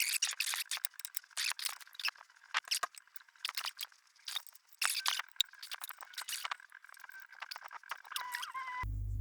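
Quick metallic clicks, scrapes and rattles as a lathe chuck is fitted back onto the lathe spindle. Near the end a steady low hum starts.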